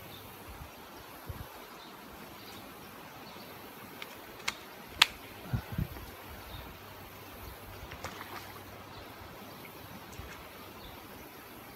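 Steady, quiet outdoor background noise broken by a few sharp clicks and knocks near the middle: the loudest a single sharp click about five seconds in, followed by a couple of low thumps, and a few fainter ticks later on.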